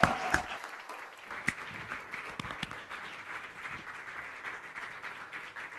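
Audience applauding, the clapping slowly thinning out.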